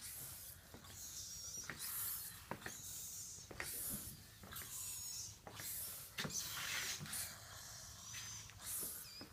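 Rain-soaked shoes squeaking and squelching, wet feet pressing inside them, a high wavering squeak with a soft click about once a second.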